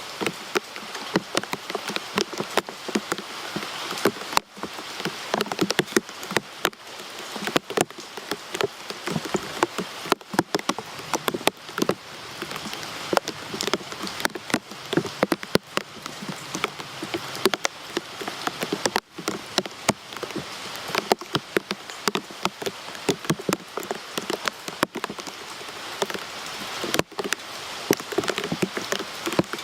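Steady rain falling, with many separate drops pattering sharply on a hard surface close by.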